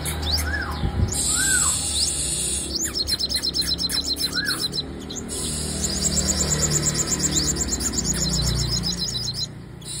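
Caged female sunbird singing. It gives a few short arched chirps, then a fast trill of repeated high notes about three seconds in, and a longer, higher trill from about six to nine seconds.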